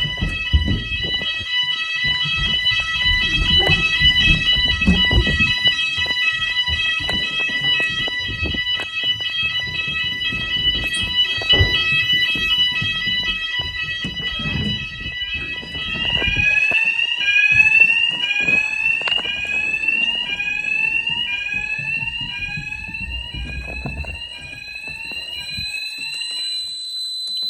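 Fire alarm sounders going off during a test: several steady high-pitched tones, which about sixteen seconds in change to a rising sweep repeated a little over once a second.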